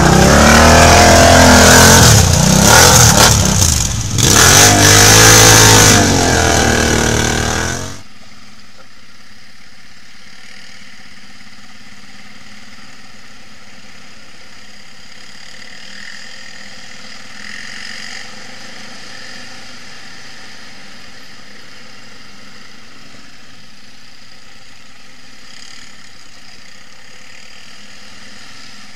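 Quad (ATV) engine revving hard, its pitch rising and falling as the throttle is worked climbing a muddy slope, for about eight seconds. Then it cuts off abruptly to a quieter, steady engine drone of quads cruising.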